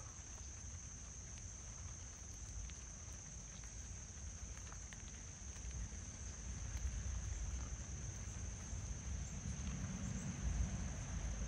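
Insects trilling steadily as one high-pitched chorus over a low rumble, with a few faint crunches of a cat chewing dry kibble.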